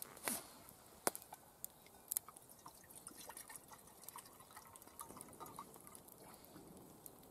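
A few sharp knocks in the first couple of seconds, then water trickling faintly from a plastic jerrycan into a small metal kettle as it is filled.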